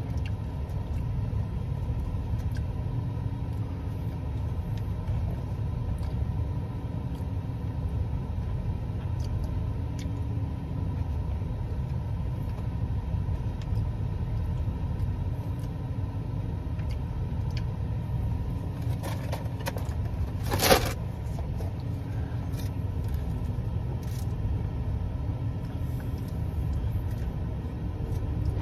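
Steady low rumble like a car engine idling, with one brief sharp noise about 20 seconds in.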